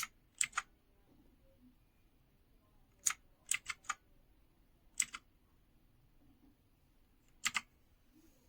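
Keys being pressed on a 60% mechanical keyboard with clicky blue switches: sharp clicks in small groups of two to four, with pauses of a second or two between them.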